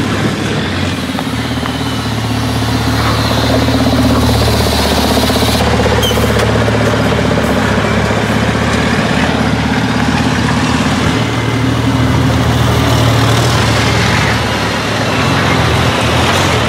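Big diesel engines of racing trucks running at low revs as the trucks drive slowly past.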